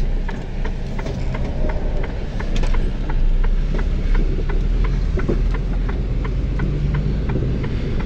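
Heavy truck driving at highway speed, heard from inside the cab: a steady drone of engine and road noise, with a light regular ticking about three times a second.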